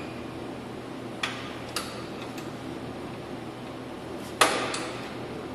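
Metal hardware and hand tools on the Jeep's fender mounting: two light clicks, then about four seconds in a louder metallic clank that rings briefly, over a steady shop hum.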